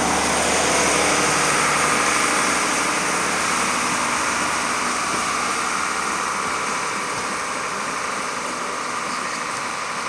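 Steam-hauled passenger train pulling out of a station, its coaches rolling away along the track. A steady rushing noise fades slowly as the train draws away.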